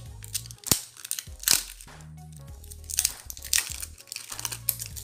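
Thin clear plastic wrapping crinkling in sharp, irregular crackles as it is peeled by hand off a new sealed motorcycle battery, over background music with steady bass notes.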